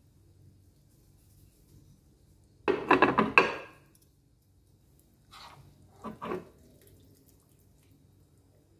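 Kitchen tongs clattering against a pan while wet noodles are lifted out of their cooking water, with water splashing and dripping back into the pan. One loud clatter about three seconds in, then two softer knocks around five and six seconds.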